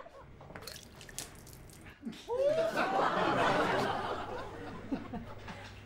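Breathy laughter: a short rising vocal sound about two seconds in, then laughing that swells and fades away.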